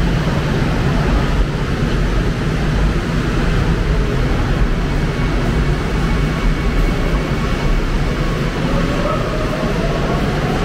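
Subway train running with a steady heavy rumble, its electric motor whine rising near the end as the train speeds up.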